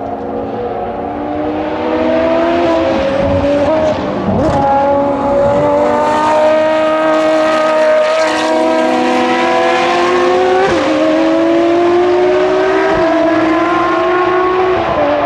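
V12 engines of Ferrari XX Programme track cars accelerating hard past on the circuit. The pitch climbs through the gears, broken by a few quick upshifts.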